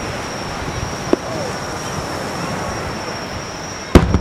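Aerial firework shells bursting: a faint bang about a second in, then a loud sharp report near the end, over a steady hiss with a constant high-pitched tone.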